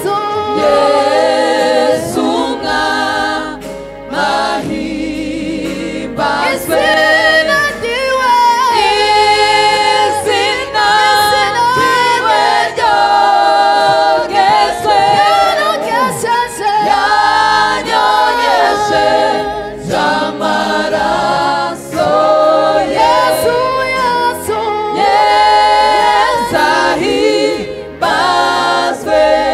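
Choir singing a Rwandan gospel song, several voices sounding together in harmony.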